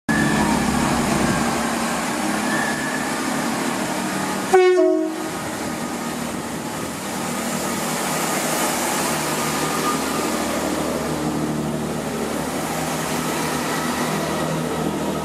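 Chiltern Railways Class 165 diesel multiple unit pulling out and passing close by, its underfloor diesel engines running under power. About four and a half seconds in it gives one short horn blast that falls in pitch.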